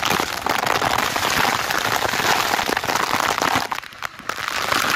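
Heavy downpour with hail pelting down in a strong wind: a loud, dense hiss crowded with small hits, easing briefly a little before four seconds in.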